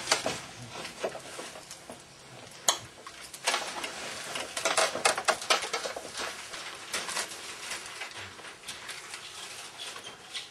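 Irregular clatter of small knocks, clicks and scrapes, busiest in the middle, with lighter ticking towards the end.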